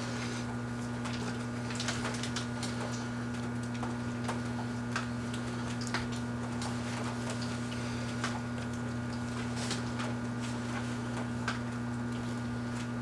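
Kenmore microwave oven running: a steady hum that starts as the cooking begins, with scattered faint clicks and ticks over it.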